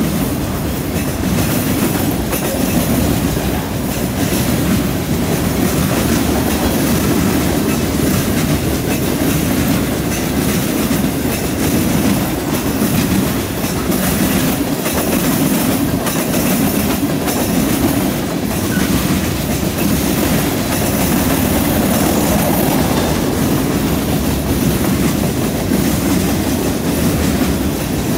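Freight train cars rolling past close by: a loud, steady rumble of steel wheels on the rails with repeated clacking as the wheels cross rail joints.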